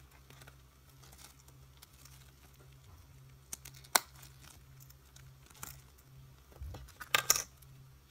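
Clear plastic card sleeves and card cases being handled: soft plastic crinkling with a few sharp clicks and knocks, the loudest cluster of clicks near the end.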